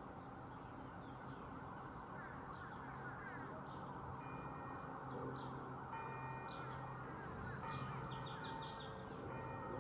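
Church bells start ringing about four seconds in, a new stroke every second or two with each tone hanging on, over a steady background hum and small bird chirps.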